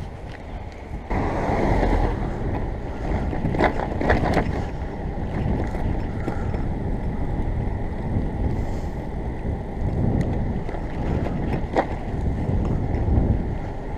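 Wind buffeting the microphone of a handlebar-mounted camera on a moving bicycle, with tyre and road rumble; it steps louder about a second in, and a few sharp clicks come through.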